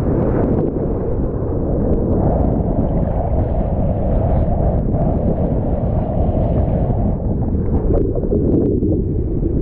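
Strong wind buffeting the microphone, a steady low rumbling noise, mixed with the rush of rough ocean surf.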